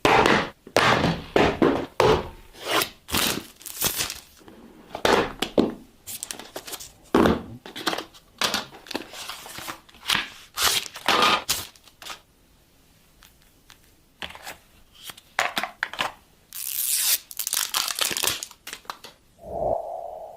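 Smartphone packaging being torn open and handled: irregular tearing and crinkling of wrapping, with a quiet pause about midway.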